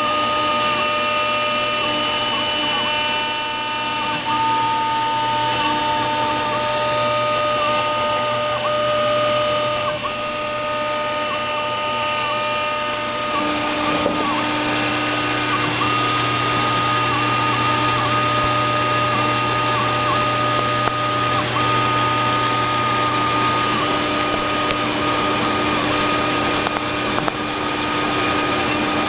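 CNC router spindle running steadily as it carves a lithophane relief into a Corian sheet, a high whine with brief dips in pitch every second or so. The whine changes character about halfway through.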